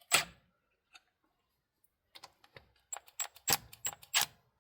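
Sharp metallic clicks and clinks of bolts and hand tools while the valve body bolts of a 68RFE transmission are loosened and hand-started: one loud click at the start, then a quick irregular cluster of ringing clicks about three seconds in.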